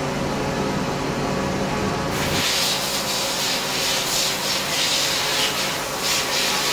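FEMCO HL-35 slant-bed CNC lathe: a steady low machine hum, then about two seconds in a loud, steady hiss starts and keeps going while the hum drops away.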